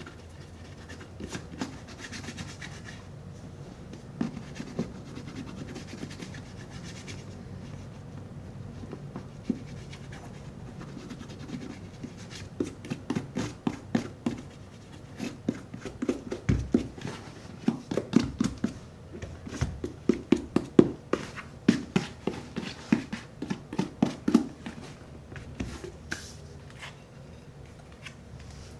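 Shoe cream being rubbed into a Red Wing 8080 leather boot: soft rubbing and scratching on the leather, then, about halfway through, a run of quick short strokes and knocks lasting several seconds.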